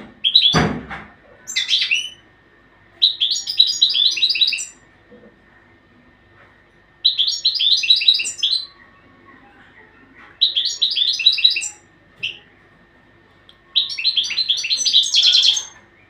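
Caged European goldfinch singing: bursts of rapid, high twittering phrases, each about a second and a half long, coming every few seconds. A single thump sounds about half a second in.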